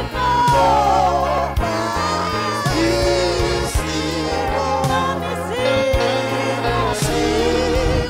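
A woman's voice sings a gospel worship song through a microphone, with long held and sliding notes, over a steady low accompaniment that moves in steps.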